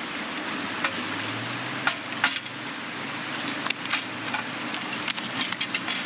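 Steady rush of fast river water, broken by scattered sharp clicks and taps.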